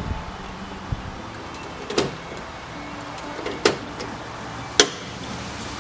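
Hand pop-rivet gun setting a rivet in a door-handle assembly: three sharp clicks a second or two apart, the last the sharpest.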